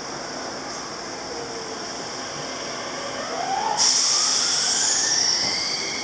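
Enshu Railway electric train starting to pull out of the station: the motor whine rises steadily in pitch as it accelerates, and a sudden, louder high hiss joins in about four seconds in.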